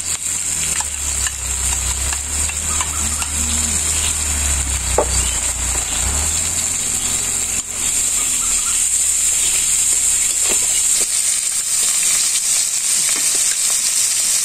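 Food frying in hot oil in a pan, a steady sizzle, with a few light knocks.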